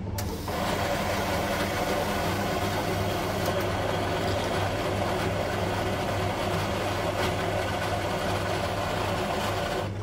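Schaerer Coffee Soul bean-to-cup coffee machine starting up and running steadily as it makes a cappuccino, its motor and pump whirring; a click at the start, and the running sets in about half a second later.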